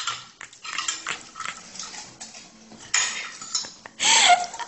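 Tableware sounds: a plate clinking and scraping with small clicks, and a napkin rustling, while a dog eats from a hand. A voice breaks in loudly near the end.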